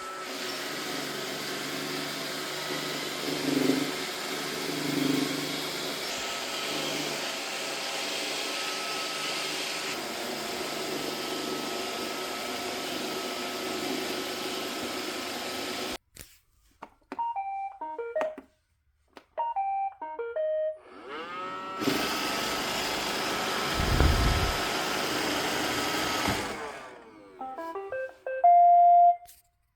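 iRobot Roomba robot vacuums: a vacuum motor and brushes run steadily and cut off abruptly, followed by short electronic beep tunes. The motor then spins up with a rising whine, runs for about four seconds and winds down, and more beeps follow, ending on one louder held tone.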